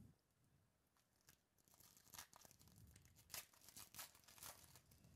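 Foil wrapper of a baseball card pack being torn open and crinkled by hand. It is faint: a quick, irregular run of crackles starting a little under two seconds in.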